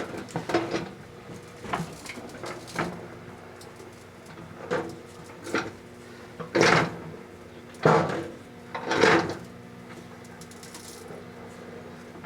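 Microwave oven running with a steady hum while the jumbo plastic Christmas ornament inside gives off irregular sharp crackles and pops. The loudest come as three longer bursts about two thirds of the way through, as the ornament heats toward catching fire.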